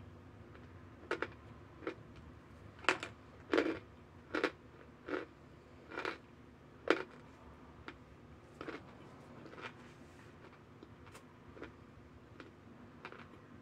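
Crunchy bites and chews of compressed cornstarch chunks: a run of short, sharp crunches about one a second, loudest in the first half and softer toward the end.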